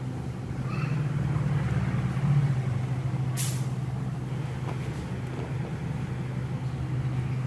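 A steady low machine hum, with one short, sharp hiss about three and a half seconds in.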